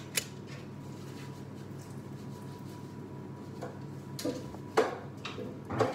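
Metal spoon clinking and scraping a few times against a glass mixing bowl while cake batter is spooned into paper cupcake cases, over a steady low hum. The clicks are sharp and scattered, the loudest coming near the end.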